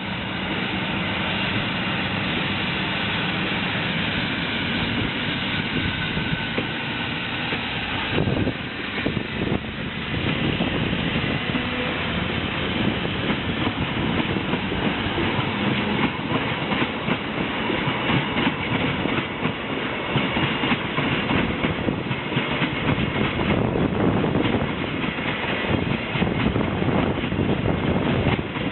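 Freight train passing: a steady rolling noise with a few high steady tones at first, then from about eight seconds in the wagons' wheels clicking over rail joints in a fast, uneven rhythm.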